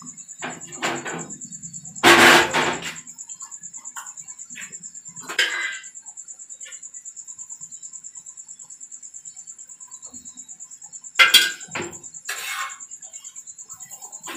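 Cooking clatter as parathas are turned on a griddle over a gas stove: a few sharp knocks and scrapes of the spatula and pans, the loudest about two seconds in and a pair around eleven seconds. Under them runs a steady high-pitched pulsing whine.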